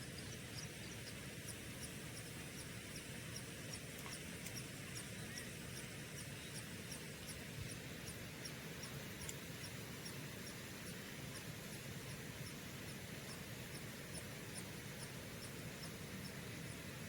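Short, high-pitched chirps from a small animal, repeated evenly about twice a second over a steady background hiss.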